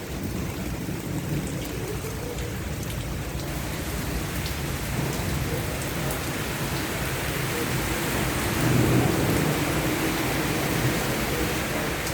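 Heavy rain pouring down steadily, growing louder partway through and heaviest about nine seconds in.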